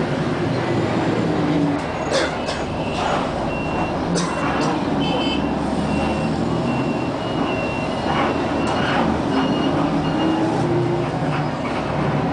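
A vehicle runs with a steady low hum, with a few sharp knocks in the first seconds. A run of short, high electronic beeps at an even pitch, about two a second, sounds through the middle.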